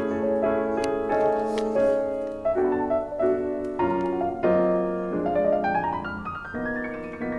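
Background piano music, a steady flow of notes with a rising run of notes near the end.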